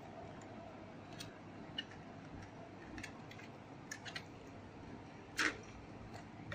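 Faint handling noise of a hand rubbing spice paste into a whole raw fish on a steel plate: scattered soft clicks and wet contact sounds, with one louder short sound about five and a half seconds in.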